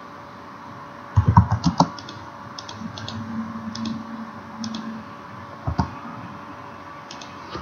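Computer keyboard typing: a quick run of key clicks a little over a second in, then one more click a few seconds later, as the TRIM command is entered in AutoCAD.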